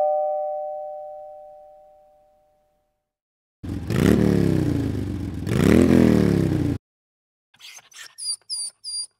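A two-tone ding-dong doorbell chime rings out and fades over the first two seconds. About a second later an engine is revved twice, its pitch falling, jumping back up and falling again, and it cuts off suddenly after about three seconds. A quick run of short, high-pitched chirps follows near the end.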